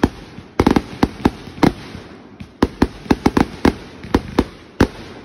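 Aerial fireworks bursting in a finale barrage: quick volleys of sharp bangs, several in each cluster, with short lulls of about a second between volleys.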